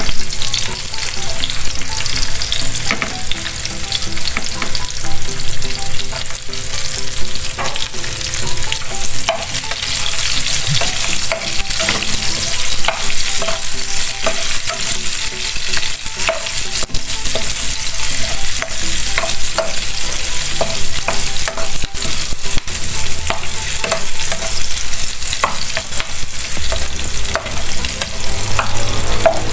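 Chopped red onion and garlic sizzling in hot oil in a frying pan, with a steady hiss and frequent sharp clicks of a spatula stirring and scraping against the pan.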